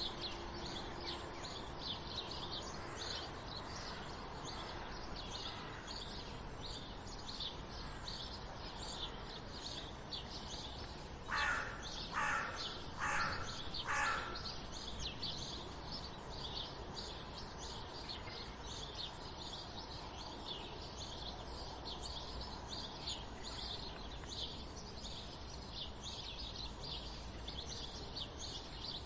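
Morning chorus of sparrows chirping steadily and densely. About halfway through another bird calls four times, louder and lower than the chirping.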